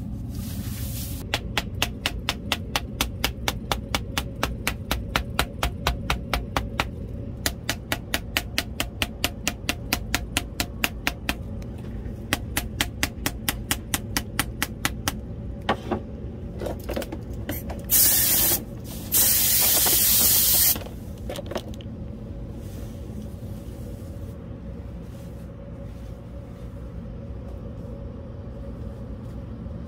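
Wooden mallet tapping steadily on a padded board, about four taps a second, pressing gold leaf onto fabric; the tapping stops about fifteen seconds in. A few clicks follow, then two loud hissing blasts, a short one and one about a second and a half long, over a steady low hum.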